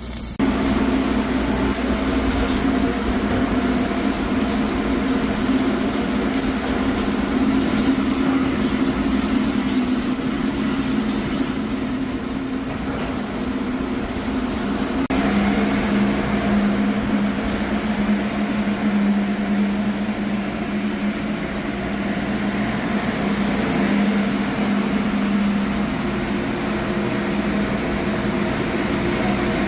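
Ventilation air blower running loud inside a large steel pipe: a steady drone with a strong hum that shifts lower about halfway through.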